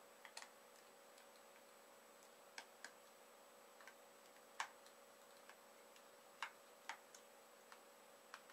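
Faint small clicks, about eight at irregular gaps, of a Phillips watchmaker's screwdriver working the tiny rear screws out of a dash cam's metal case.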